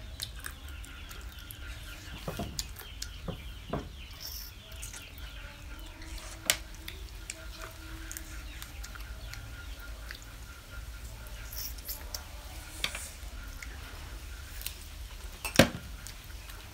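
Mouth sounds of eating spicy pickled chicken feet by hand: scattered smacks, sucks and small crunches over a steady low hum, with one sharp click about six and a half seconds in and the loudest just before the end.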